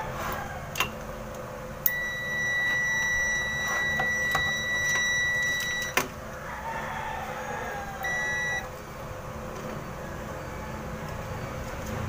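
Digital multimeter continuity beep: one long, steady beep of about four seconds while the probes are held across the compressor's overload protector, showing the overload is closed. A short beep follows about two seconds later, with a few sharp clicks from probe handling.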